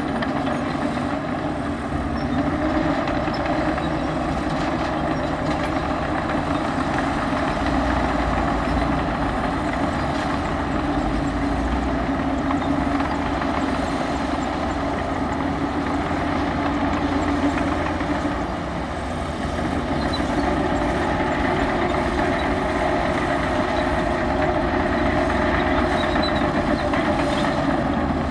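Heavy diesel engine of earthmoving machinery running steadily. Its level dips briefly about two-thirds of the way through, then comes back up.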